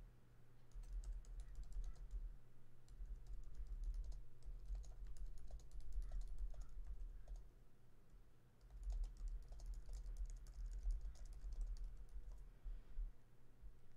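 Typing on a computer keyboard: rapid key clicks with soft thuds, in two long runs with a short pause about eight seconds in, over a steady low electrical hum.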